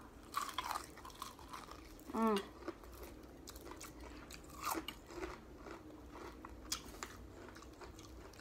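Crunchy bites and chewing of Popeyes fried chicken's crispy breading: scattered crackles and crunches, with a short sound from the eater's voice about two seconds in.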